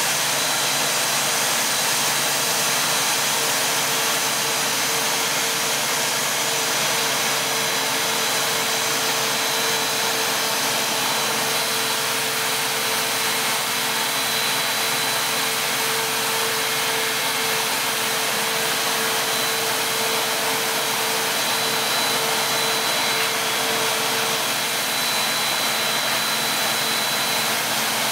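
Two-stage plastic recycling extrusion line running: a steady whirring hiss of its motors and blower, with a thin high whine over it. A mid-pitched hum in the mix drops away near the end.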